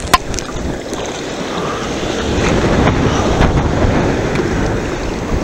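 Sea water splashing and sloshing around a kayak, with wind noise on the microphone. A single sharp knock just at the start.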